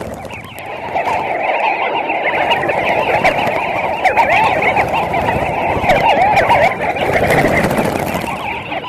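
A dense chorus of many birds calling at once, countless short up-and-down calls overlapping into a continuous din.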